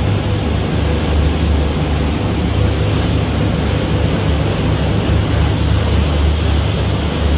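Motorboat running under way: a steady low engine drone under a loud, even rush of wind and water.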